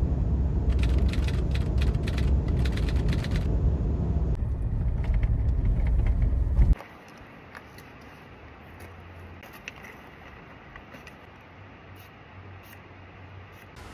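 Road noise inside a moving car: a steady low rumble with a run of rattling clicks early on. It cuts off suddenly about seven seconds in, leaving only a faint hiss with a few light clicks.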